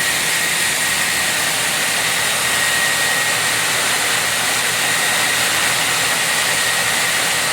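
HF-103DM high-frequency wire saw running steadily through a cut: a loud, even hiss with a thin high whine held on one note.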